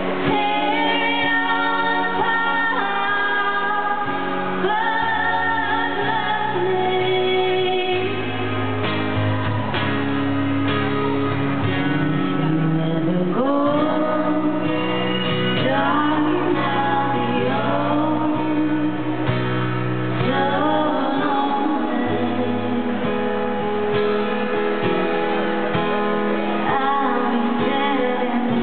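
Live country music: women singing with acoustic guitar accompaniment.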